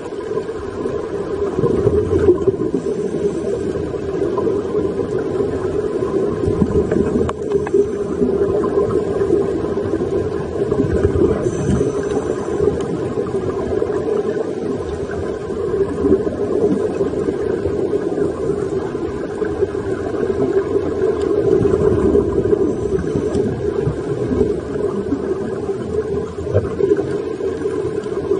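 Underwater ambience recorded through a camera housing: a steady muffled rumble with irregular surges, among them the bubbling of scuba divers' exhaled breath.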